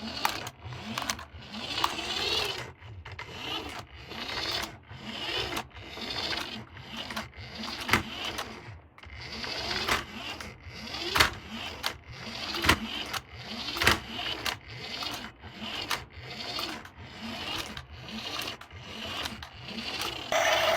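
Small electric motor and plastic gears of a battery-powered toy running, with irregular clicking, about two or three clicks a second, over a wavering whir.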